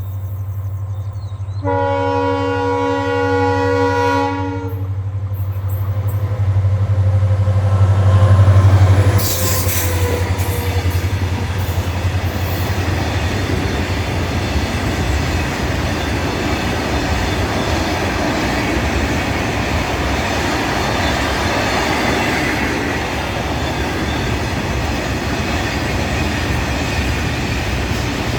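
EMD WDG4D diesel-electric locomotive sounding its multi-tone horn for about three seconds, then its engine running loudly as it passes about eight seconds in. A long train of BOBYN hopper wagons then rolls by with steady wheel clatter.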